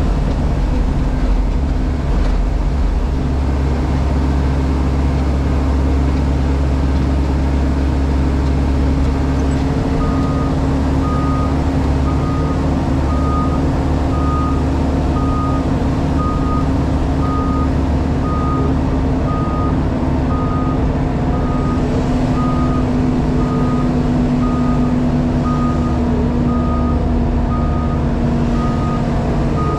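JCB Pothole Pro's diesel engine running steadily, heard from inside the cab. About ten seconds in, a high warning alarm starts beeping about once a second and carries on.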